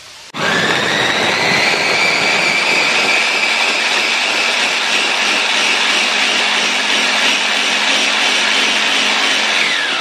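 Mitochiba CH100 electric chopper motor switching on and running at full speed, blending guava chunks and water into juice. Its whine rises as the motor spins up in the first second or two, holds steady, and falls in pitch as it begins to wind down right at the end.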